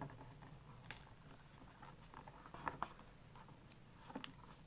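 Origami paper being folded and creased by hand: faint rustling with a few short crisp crackles, two close together in the middle and another near the end.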